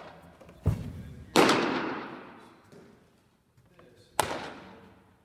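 A baseball pitch in a big echoing gym: a low thud as the pitcher's stride foot lands, then the ball smacks into the catcher's mitt with a loud pop that rings out for about a second. A second sharp smack of a ball into a glove comes near the end.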